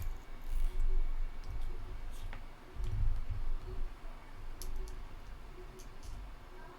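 Light scattered clicks and handling noise from small plastic and metal parts of a paintball marker being worked by hand while its breech eye and eye cover are fitted, with dull low knocks.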